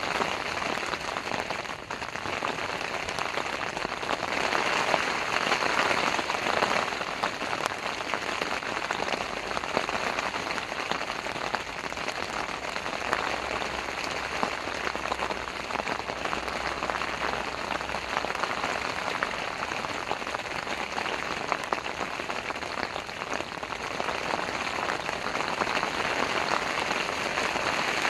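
Heavy rain falling steadily: a dense hiss of many small drop hits.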